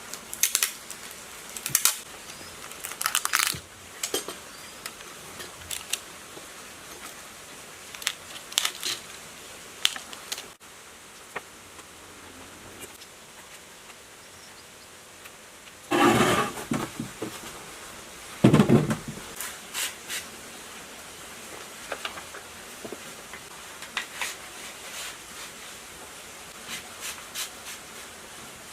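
Metal tools and motor parts clinking and clattering as they are handled, with scattered light clicks and two louder clanks about two-thirds of the way through.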